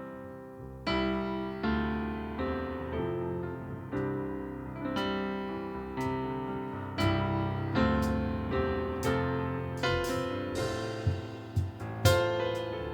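Electric piano playing slow chords alone, each chord struck and left to fade.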